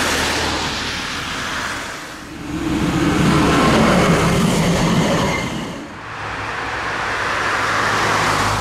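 Articulated electric tram running on its rails: first approaching, then passing close by with a loud rumble of wheels on track about three seconds in, then running on with a steadier low hum. The sound changes abruptly twice.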